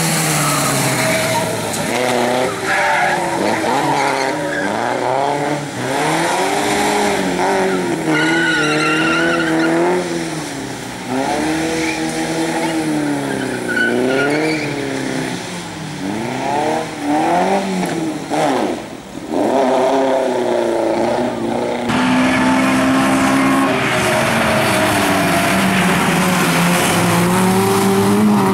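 Several bilcross racing cars' engines revving hard, their notes repeatedly rising and falling through gear changes and corners, with tyres skidding. About three-quarters of the way through, the sound changes abruptly to a steadier, louder engine note.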